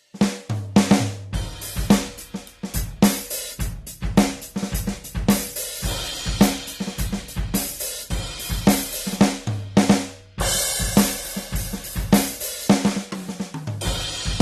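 Yamaha DTX8 electronic drum kit playing one of its module's drum-kit sounds, heard unprocessed: a busy groove of kick, snare, hi-hat and cymbal hits. It stops briefly about ten seconds in, then carries on with heavy cymbal wash.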